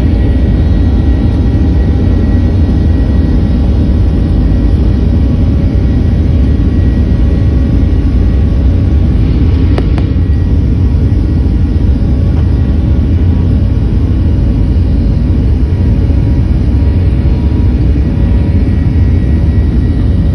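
Boeing 737-800's CFM56-7B jet engines running at takeoff power: a loud, steady rumble with a few steady whining tones over it, holding level throughout.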